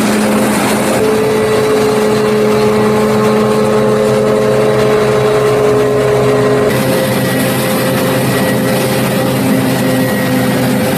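New Holland FR500 self-propelled forage harvester chopping corn, with a Fendt tractor running alongside: a loud, steady engine drone with a held high whine on top. The sound changes abruptly about a second in and again about two-thirds of the way through.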